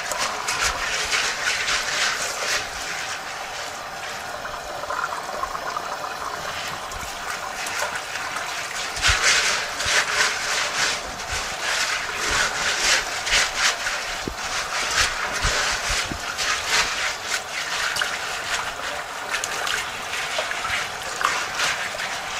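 Water from a garden hose running and splashing over pea seeds held in a mesh bag in a stainless steel sink, while hands rub the wet seeds: the initial rinse that clears dust and debris off the seed before sanitizing. The splashing comes and goes and is loudest around the middle.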